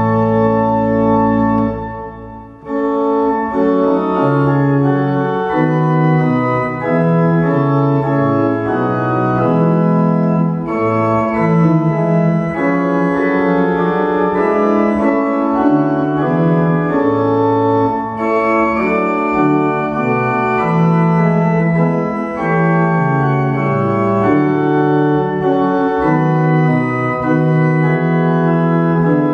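Organ playing slow, sustained chords with held notes. The sound thins out briefly about two seconds in, then the playing resumes.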